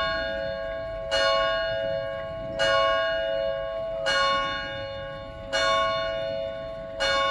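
A single church bell tolling, one stroke about every second and a half, each stroke ringing on and fading before the next.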